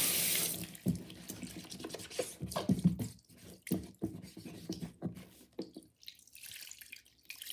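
A running tap shuts off just under a second in. Then come irregular wet slaps, rubbing and drips as a soapy plastic pencil box is scrubbed by hand and tipped up in a basin of suds.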